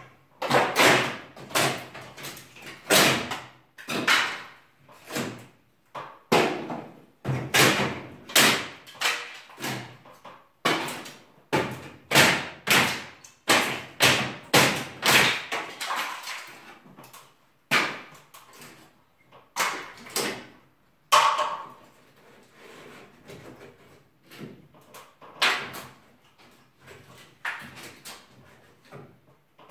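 Repeated banging and knocking from demolition of a wooden ceiling, as its boards and battens are struck and pulled down, each blow ringing on briefly in the stripped room. The blows come about once a second at first, then grow sparser and quieter in the second half, with a brief squeak about two-thirds of the way through.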